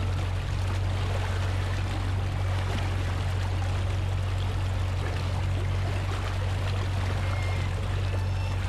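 Boat running on the water: a steady low engine drone under a constant rush of water.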